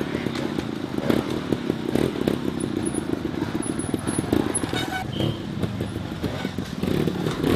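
Trials motorcycle engine running at low revs with an uneven throttle as the bike is ridden over boulders.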